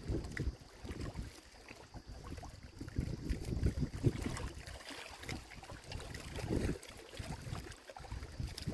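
Wind buffeting the microphone outdoors: an uneven, gusting low rumble that rises and falls every second or so.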